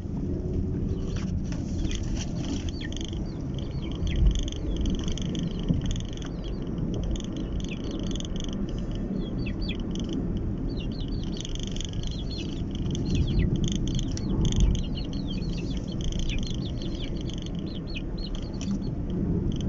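A Honda Brio drives with a steady low rumble of engine and road noise. Over it comes a dense chorus of high animal calls: many short, quick falling chirps over a wavering high buzz, thickest in the middle stretch.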